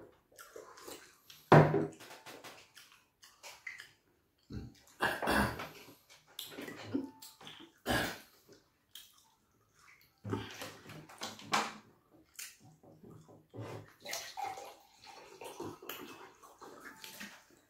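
Close-up wet mouth sounds of eating fufu with slimy ogbono (draw) soup: irregular smacking, squelching and chewing, the loudest smack about one and a half seconds in.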